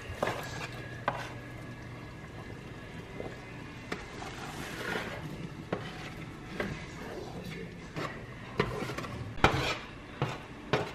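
A plastic spatula scraping roasted butternut squash and sweet potato cubes off a baking sheet into a pot of curry: a scraping rub with scattered clicks and knocks as pieces drop and the spatula and sheet tap the pot, louder and more frequent near the end.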